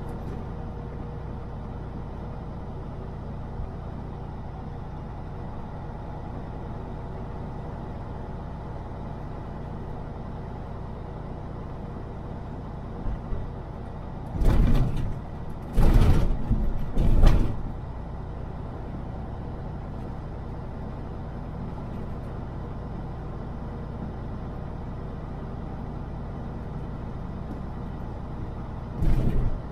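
Semi truck running steadily, a low engine drone heard from the cab. It is broken by three loud bursts of noise about halfway through and another near the end.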